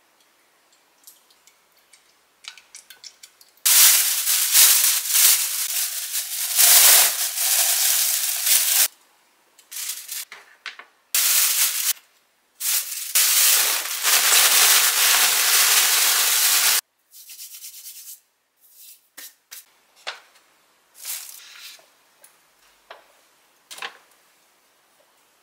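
Plastic bag rustling hard as it is shaken with eggplant pieces and starch inside to coat them, in several long bursts. Faint small taps and clicks come before and after.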